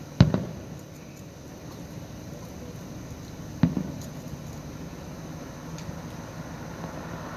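Two firework bangs about three and a half seconds apart, each followed by a brief echoing rumble, over a steady low background hum.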